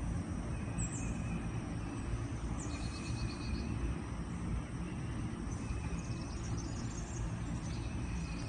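Outdoor ambience: a steady low rumble with faint insect trills coming and going and a few brief high bird chirps.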